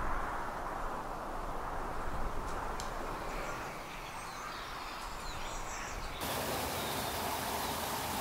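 Outdoor woodland ambience: a steady rushing noise with faint bird calls in the middle. About six seconds in, the sound switches abruptly to a brighter hiss.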